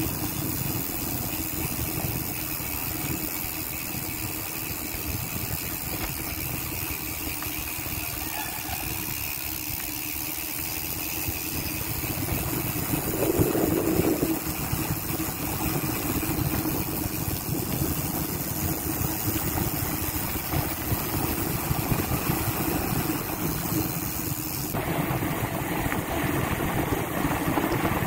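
Weapon Beast rear hub (five-pawl cassette freehub) freewheeling, its pawls clicking so fast that they merge into a steady buzz.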